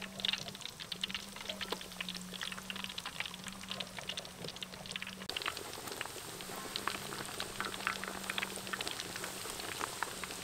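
Battered chicken wings deep-frying in a wok of hot oil: a steady sizzle with dense crackling and popping.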